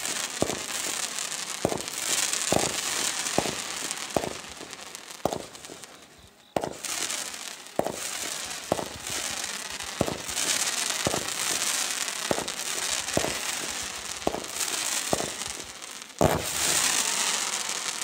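Small fireworks firing one after another: sharp pops about once a second over a steady hiss of burning sparks. The firing dies away briefly about six seconds in, then starts again suddenly, with the loudest bang near the end.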